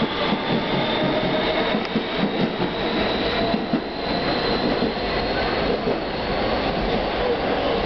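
Siemens-propelled R160B subway train accelerating out of a station, its traction motor whine climbing slowly in pitch over steady wheel-on-rail noise.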